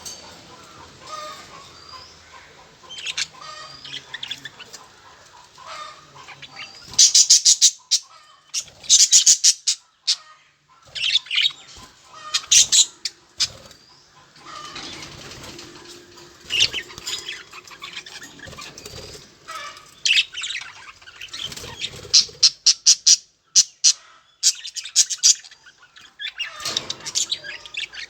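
Budgerigars chirping and chattering on and off, with several loud bursts of rapid, sharp, clicking notes.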